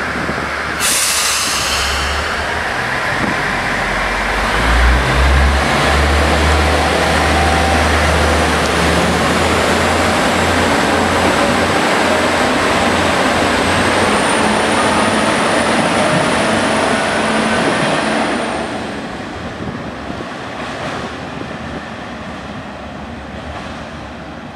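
Aizu Railway AT-600/AT-650 diesel railcars pulling away: a short burst of air hiss from the brakes about a second in, then the diesel engines throttle up and run loudly with a rumble. A faint high whine joins briefly, and the sound fades from about eighteen seconds in as the train draws off down the tunnel.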